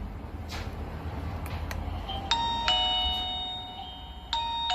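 Kkmon Wi-Fi video doorbell chime ringing after its button is pressed: an electronic two-note ding-dong, a higher note then a lower one, about two seconds in, starting to repeat near the end.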